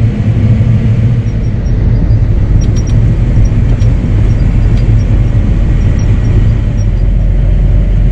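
Heavy harvest machinery's diesel engine running steadily under load, a deep even drone while the combine picks corn.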